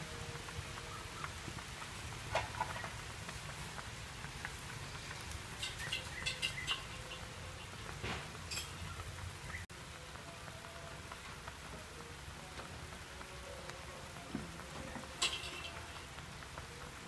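Chicken curry simmering in a clay pot over a wood fire: a steady sizzling hiss with a low rumble, broken by a few sharp crackles and pops from the burning wood, a small cluster of them a few seconds past the middle.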